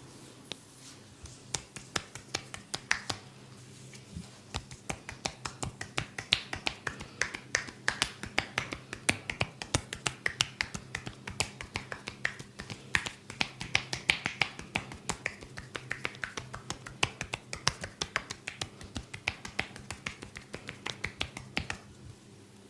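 Rapid percussive hand massage: the masseur's loose fingers clap and snap together as his hands strike, making a steady run of sharp clicks, about four a second, that starts about a second in and stops shortly before the end.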